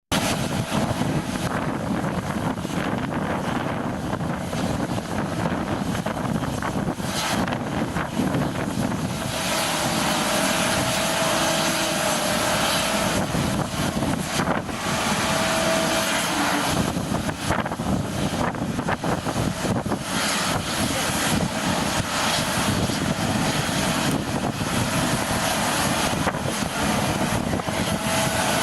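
Boeing 747-400F cargo jet's four jet engines on approach to land: a continuous rushing engine noise, with a steady whine that comes in about nine seconds in as the noise grows brighter.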